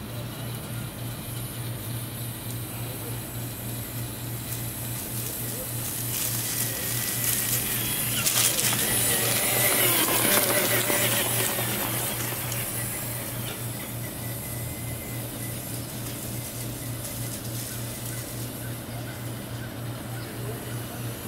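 Background music with a steady beat throughout. About six seconds in, the electric motor and drivetrain of a Traxxas TRX-4 Sport RC crawler, with its tyres on grass and dirt, grow louder as the truck drives close past, peaking around ten seconds and fading by twelve.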